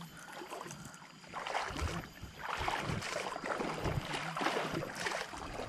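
Water sloshing and splashing in uneven swells around an angler wading through a shallow river.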